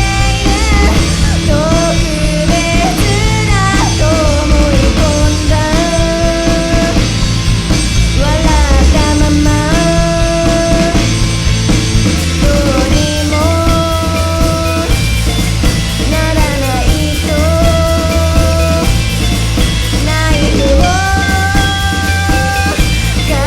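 Rock band playing live: drums and bass with a melodic lead line of held, sliding notes over them.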